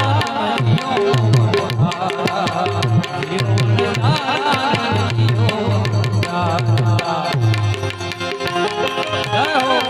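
Gujarati folk music without words: a tabla-style hand drum keeps a steady beat under a melody instrument playing ornamented, wavering phrases over sustained tones.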